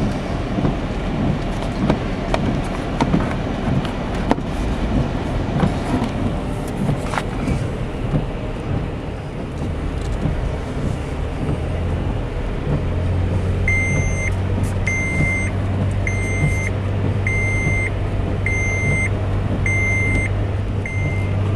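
Toyota FJ Cruiser's 4.0 L V6 running as it drives through deep snow, a steady rumble with a low hum that grows louder about two-thirds of the way through. Near the end an electronic beep starts repeating about once a second.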